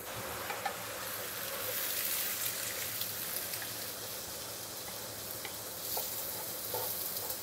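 Eggs frying in hot sesame oil in a stainless steel pan, sizzling steadily, with a wooden spoon scraping and tapping the pan now and then as they are stirred and scrambled.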